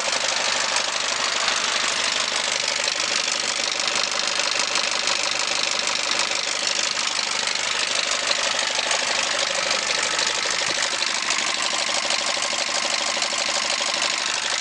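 Nissan ZD30 3.0-litre four-cylinder turbo diesel idling steadily, heard with the bonnet up.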